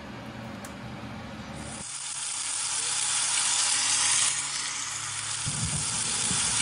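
Steak searing in a cast iron pan: a loud frying sizzle that starts abruptly about two seconds in, swells and then eases a little, over a steady low hum.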